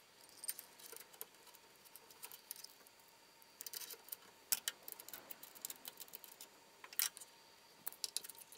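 Faint scattered clicks, taps and light rattles from a stepper motor and its metal mounting plate being handled against an aluminium extrusion frame. Two sharper knocks stand out, about four and a half and seven seconds in.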